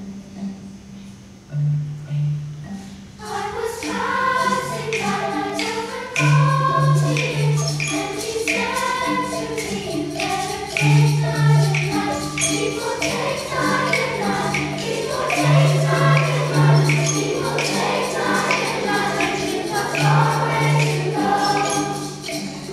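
Children's choir singing, entering about three seconds in, over xylophones playing a repeating pattern of low notes. A light percussion tap, like a tambourine, keeps a steady beat.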